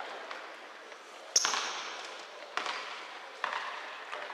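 A basketball bouncing on a hard indoor court, four bounces roughly a second apart, each echoing in a large hall. A brief high squeak comes with the loudest bounce, about a second and a half in.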